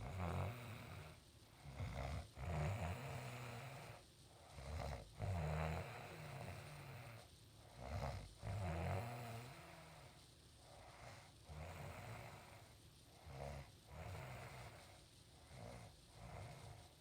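A sleeping woman snoring loudly, one rasping snore after another, each a second or two long with short pauses between.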